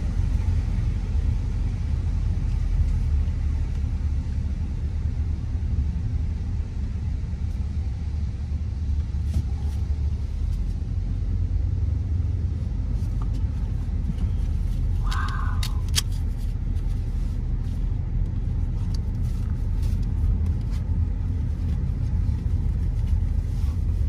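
Steady low rumble of a moving car heard from inside the cabin: engine and tyre noise on a paved road. About fifteen seconds in there is a brief, higher-pitched sound, followed by a couple of faint clicks.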